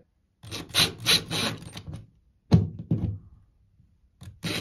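Ryobi cordless driver running in short bursts, driving screws through a metal towel-bar bracket into plastic drywall anchors, with a sharp knock about halfway through.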